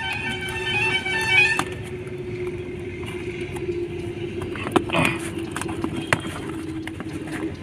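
Packing tape and cardboard of a parcel being slit with a razor blade and torn open, giving scattered sharp clicks and a short rasping tear about five seconds in. A steady engine hum runs underneath, and a brief pitched tone with overtones sounds in the first second and a half.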